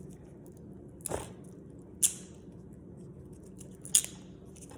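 Three brief rustles of paper and plastic packaging being handled, about one, two and four seconds in, over a low steady hum.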